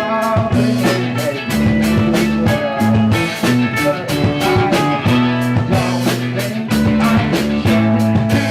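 Live band playing an improvised rock jam: held bass notes that change every second or so under electric guitar lines, over a steady beat.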